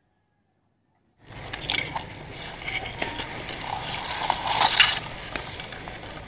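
Silent for about the first second, then tall grass blades rustling and crackling as they brush and scrape against the camera while it is pushed through dense grass, with many small sharp crackles.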